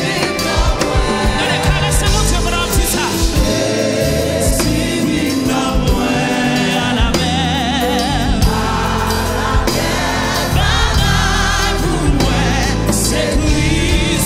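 Live gospel worship song: a mixed choir of men and women singing in Haitian Creole over a band with electric bass.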